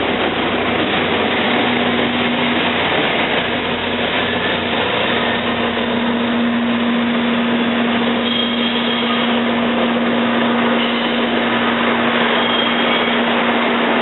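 Train at a station platform running with a steady mechanical rumble and a steady low hum. The hum fades about three seconds in and returns stronger a couple of seconds later.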